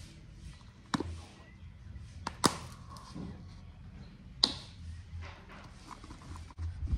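Four sharp knocks, about a second in, twice in quick succession near two and a half seconds, and once more about four and a half seconds in, over a low steady hum.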